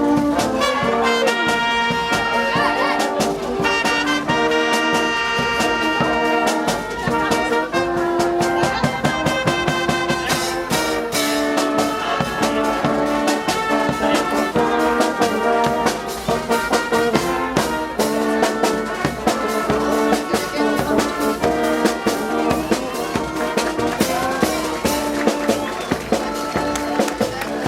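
Brass band playing: trumpets and trombones sounding held, stepwise-changing notes together over steady marching percussion.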